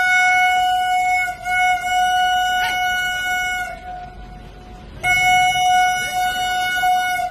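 Locomotive horn sounding one long, steady high note, breaking off for about a second near the middle and then sounding again: a warning to drive animals off the track.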